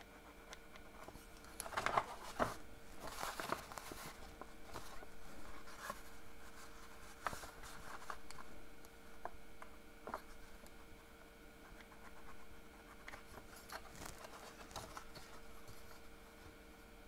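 Quiet handling sounds of a paper lantern being turned and moved on a craft mat: scattered light rustles, taps and scrapes of paper, busiest a couple of seconds in.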